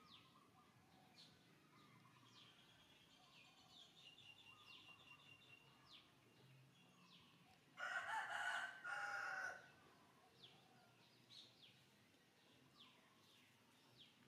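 A rooster crowing once, about eight seconds in: one loud call of under two seconds, broken into two parts. Faint chirps of small birds come and go throughout.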